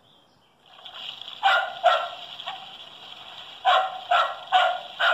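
Recorded dog barking played from the small speaker of a Melissa & Doug wooden farm sound puzzle. It sounds thin and tinny over a steady hiss: two barks, a pause, then a quick run of four more.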